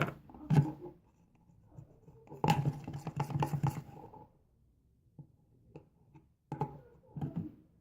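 Irregular knocks, taps and scrapes of hands handling plastic containers and a mixing utensil: a few sharp knocks at the start, a dense run of tapping and scraping in the middle, and scattered taps near the end.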